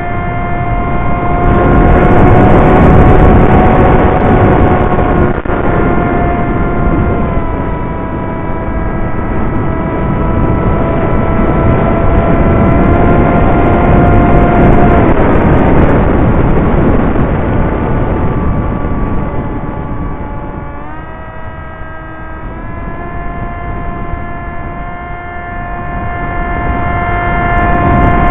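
Electric motor and propeller of an EPP foam FPV plane whining steadily, heard through the onboard camera with wind rushing past. The pitch drops slightly around the middle, dips briefly about three quarters of the way through, then rises back.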